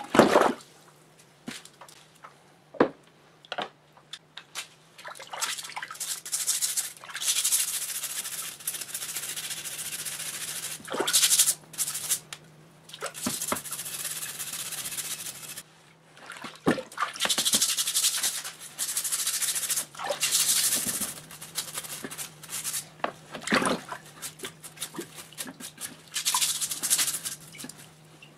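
Stiff brush scrubbing rusty air-compressor parts in a tub of water, in bouts of rapid back-and-forth strokes with short pauses between them; water splashes as a hand plunges in at the start.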